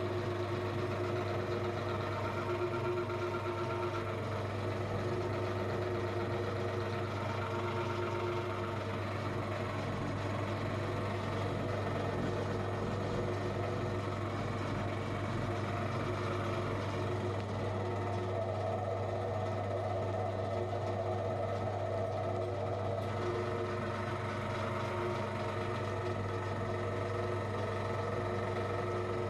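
Electric meat grinder motor running steadily under load as it grinds soap. Its tone shifts slightly for a few seconds past the middle.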